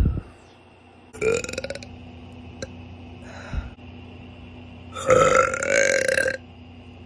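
Women burping three times: a short burp about a second in, a faint one midway, and a long, loud burp of about a second and a half near the end.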